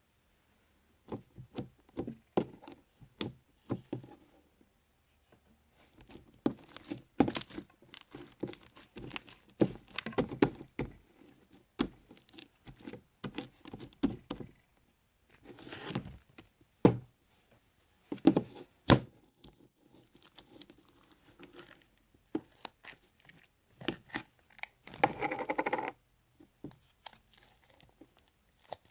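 Crunchy slime, activated with Tide detergent and Elmer's Magical Liquid, being squeezed and pressed by hand, giving irregular crackling and sharp clicking pops in bursts with short pauses.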